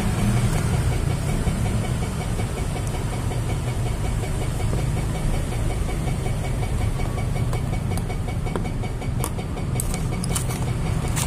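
Steady road traffic noise with an engine idling close by: a low hum with an even, rapid pulse. A few sharp clicks and knocks come near the end.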